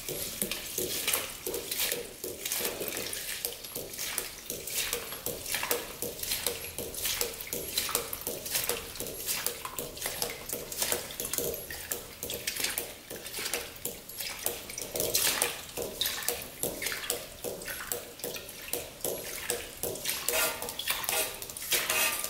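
Gasoline running from a siphon hose into a plastic drain pan, splashing and gurgling in uneven spurts: old fuel being drained out of an ATV's tank.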